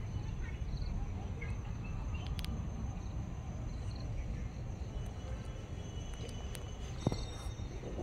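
Steady high-pitched drone of crickets over a low background rumble, with a few faint short chirps.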